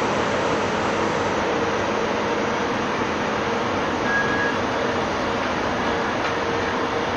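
Freight wagons loaded with steel pipes rolling past on the rails: a steady rumble and hiss of wheels on track, with a brief high squeal about four seconds in.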